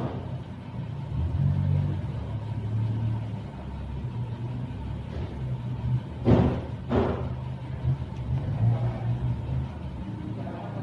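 A low, steady engine-like rumble that swells and fades, with two short, loud bursts of noise about six and seven seconds in.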